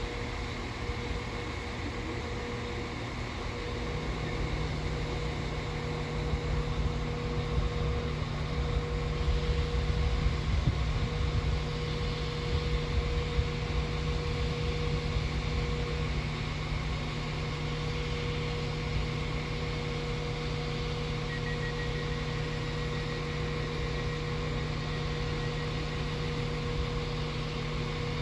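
Class 195 diesel multiple unit standing at the platform with its underfloor diesel engines idling, a steady hum. About four seconds in the engine note steps up, and a deeper rumble swells and then eases over the following several seconds.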